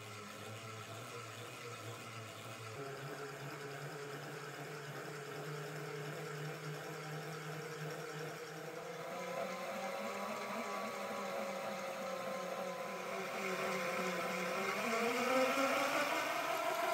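Brushless electric motor driving a Xiaomi M365 scooter's rear wheel through a toothed HTD belt, spinning the wheel with no load: a mechanical whine with several tones that grows louder and climbs in pitch near the end, then holds at top speed on the stock 36-volt battery.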